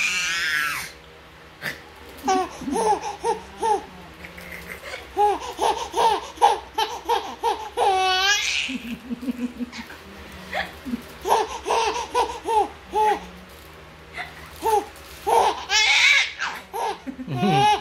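Baby laughing in runs of short laughs, with a high squeal about eight seconds in and another near the end.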